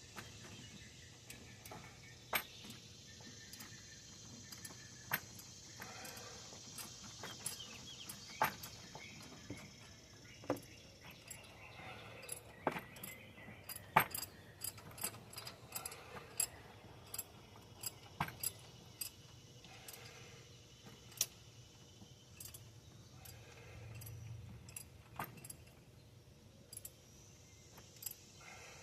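Faint, scattered metallic clicks and clinks of hand tools against metal, coming singly at irregular intervals, as a socket and extension work on a stuck knock sensor.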